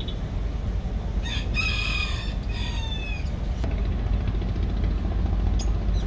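A rooster crows once, starting about a second in: a long call that falls in pitch at the end. It sits over a steady low rumble.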